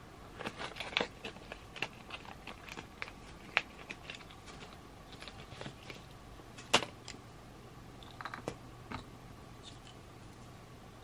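Light clicking and crinkling of nail-art brushes and their plastic packaging being handled, with one sharper click about seven seconds in.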